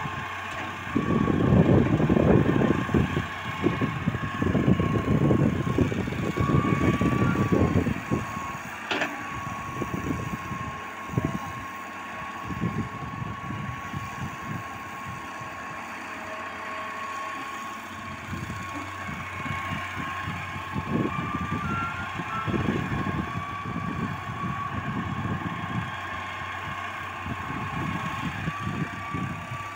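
A Hitachi hydraulic excavator's diesel engine runs under load as it digs and swings, with a steady high-pitched whine running through. It is loudest in the first several seconds, and there is a single sharp click about nine seconds in.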